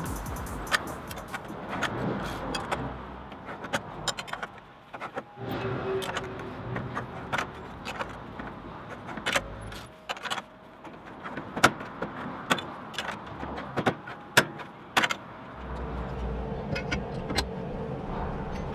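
Steel strip being worked by hand through a homemade three-roller bending jig, clanking against the rollers with irregular sharp metallic clicks and knocks. A low steady hum joins about three seconds before the end.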